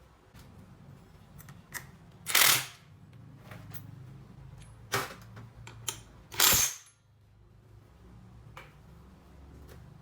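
Clicks and knocks of tools and engine parts being handled, with two short, loud hissing bursts, one about two seconds in and one past six seconds, over a low steady hum.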